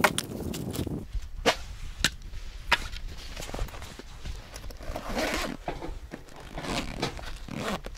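Split firewood logs knocking together as they are stacked into a fabric carry bag: a few sharp wooden knocks in the first three seconds. Then the bag's zipper is pulled closed in a couple of rasping strokes.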